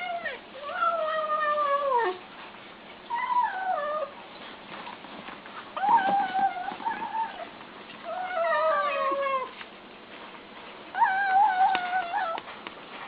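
A domestic cat giving a series of about six drawn-out, wavering meows, each a second or so long and a second or two apart, several sliding down in pitch at the end.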